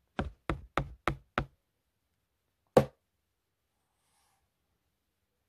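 Five quick knocks in a row, then after a pause of about a second and a half a single louder knock.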